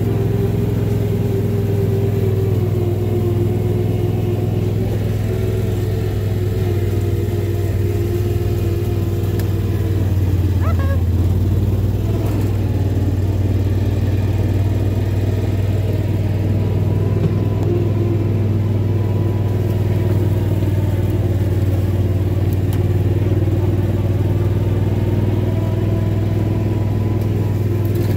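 Engine of a vehicle being ridden over rough ground, running at a steady, even speed with only slight rises and falls in pitch. A short rising squeak sounds about ten seconds in.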